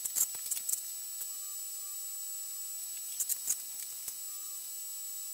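TIG welder tack welding the stabilizer's tubing: a crackle of sharp ticks near the start and another about three seconds in, over a steady high hiss.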